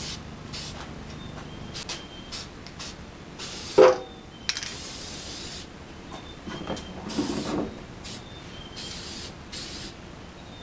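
Aerosol can of high-tack gasket adhesive spraying in about ten short bursts onto an oil pan flange, coating it to hold the new gasket in place. A sharp clunk about four seconds in is the loudest sound.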